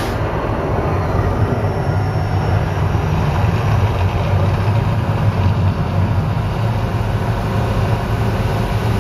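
Steady low rumble of the Mirage volcano eruption show as its flames die down.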